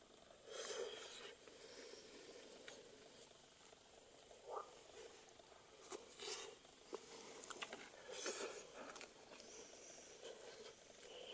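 Steady high-pitched chorus of night insects, with a few short soft scrapes and rustles of a knife cutting roast chicken on a wooden board and of chewing.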